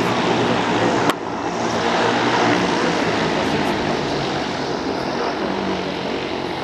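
Zeppelin NT airship's propellers and engines running as it flies low toward the listener, a steady propeller drone. A sharp click comes about a second in, after which it is slightly quieter.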